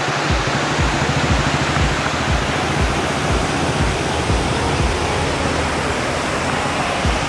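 Steady rush of water from river rapids, with background music's low beat pulsing about twice a second underneath.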